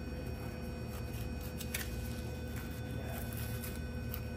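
Steady low machine hum, with faint knife cutting through beef around the hip bone and a single sharp click a little under two seconds in.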